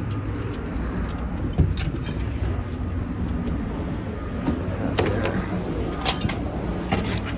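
Steady low rumble of heavy scrap-yard machinery running in the background, with several sharp metallic clanks and clinks of scrap metal scattered through, the loudest about 1.5 s in and around 5 and 6 s in.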